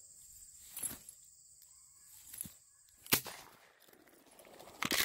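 A single sharp gunshot crack about three seconds in, the loudest sound here, with fainter knocks and rustling before it and a quick cluster of clicks near the end.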